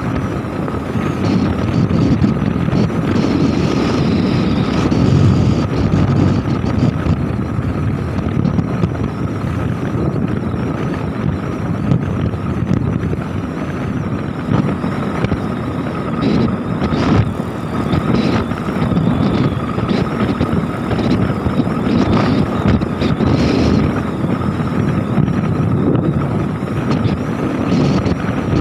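Wind buffeting the microphone on a moving motorcycle, a dense, gusty rumble, with the motorcycle's running and a thin steady whine underneath.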